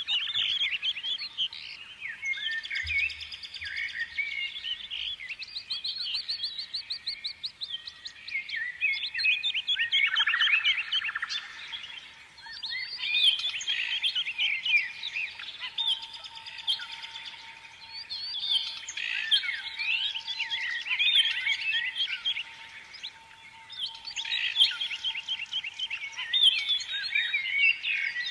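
A flock of small songbirds chirping and twittering together, many rapid overlapping chirps that come in bouts with short lulls between them.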